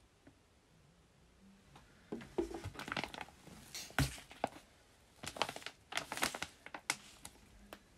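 Glossy plastic pouches of powdered meal replacement crinkling in bursts as they are handled, with one sharp thump about four seconds in as a pouch is set down on a wooden shelf, then more crinkling.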